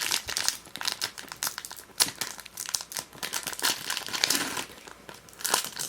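Foil wrapper of a Pokémon trading card booster pack being torn open and crinkled by hand, an irregular crackling.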